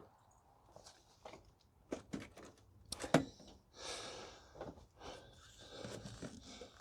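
Hand work on engine parts: scattered clicks and knocks of tools and parts being handled, the loudest about three seconds in, followed by stretches of rustling.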